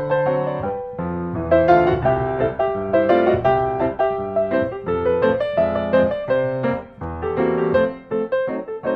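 Background piano music: a steady flow of notes over lower held notes.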